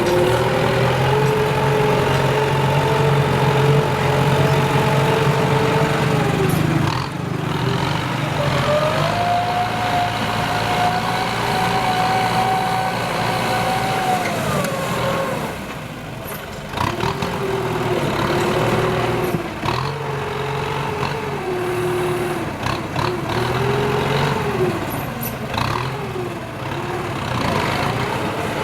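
Kubota M9540 tractor's diesel engine running under load while pulling a plough. Its pitch sags and recovers several times, most clearly about a third and about halfway through, as the load on the engine changes.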